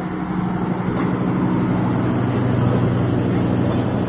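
Intercity express passenger coaches rolling past on the rails as the train pulls out of the station: a steady rumble of wheels on track over a low, even hum, growing a little louder around the middle.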